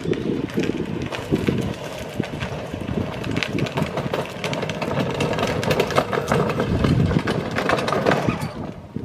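Battery-powered Mercedes-Benz ride-on toy SUV driving over a concrete driveway: its small electric drive running and its hard plastic wheels rumbling, with steady crackling from grit and dry leaves under the wheels.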